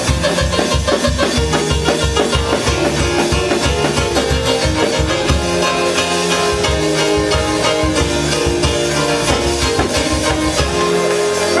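Upbeat praise music from a live band, with a steady drum beat under bass and held instrument notes.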